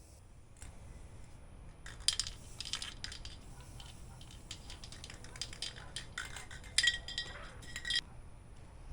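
Aerosol can of primer being handled and shaken, with irregular sharp metallic clicks and clinks in two clusters, about two seconds in and again around six to eight seconds in.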